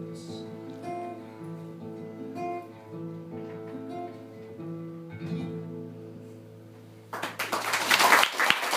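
Guitar picking the closing notes of a folk song, slowly fading. About seven seconds in, audience applause breaks out suddenly.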